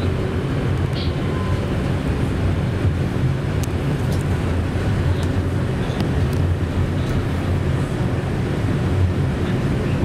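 KTM-31 (71-631) tram running along the track, heard from the driver's cab: a steady rumble of wheels and running gear, with a few light clicks.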